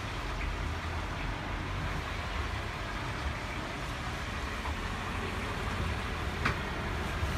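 Steady outdoor background: a low rumble under an even hiss, with no single clear source. A brief high chirp comes about six and a half seconds in.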